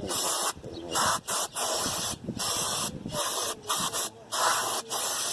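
Aerosol brake cleaner hissing from the can in about ten short bursts, sprayed onto a disc-brake caliper and bracket to wash off brake dust.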